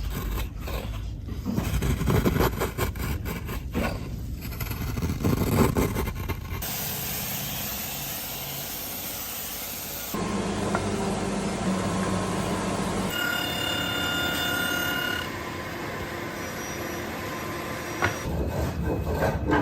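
Woodworking machinery in a run of short shots: irregular knocking and rattling for the first six seconds or so, then steady machine noise, with a whine holding several steady pitches for a couple of seconds past the middle.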